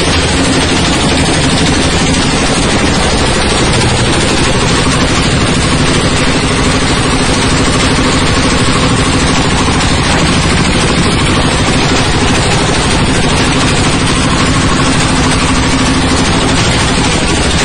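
Coconut-husk decorticating machine running, shredding husks into coir fibre: a loud, steady mechanical din with a dense rattle and a steady hum underneath.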